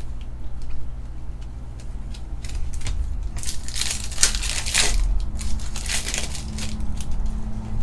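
A 2021 Bowman baseball card pack's foil wrapper being torn open and crinkled, loudest from about three to six seconds in. Before that come soft clicks of cards being handled, over a low steady hum.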